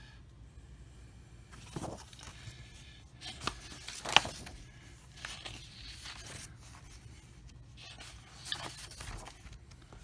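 Stiff cardstock Strat-O-Matic football cards being handled and flipped through by hand: scattered rustles and slides of card against card, with a few sharp flicks, the loudest about four seconds in.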